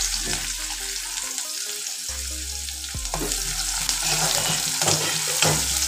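Sliced onions sizzling in hot mustard oil in a kadai, a steady frying hiss, with a spoon stirring and knocking against the pan a few times.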